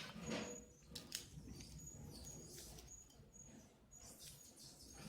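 Faint crackling and clicking of dry, papery garlic skins being peeled off a bulb by hand, with a few short faint high squeaks.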